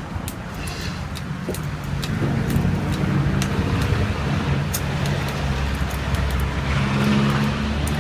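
A motor vehicle's engine running close by over street traffic noise, growing louder about two seconds in, with scattered light clicks.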